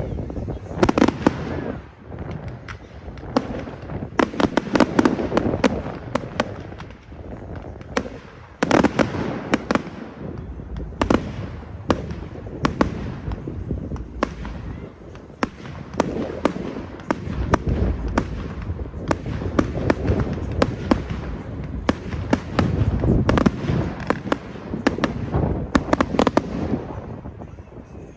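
Fireworks display going off: a steady run of sharp bangs and crackling in quick clusters, dying away near the end.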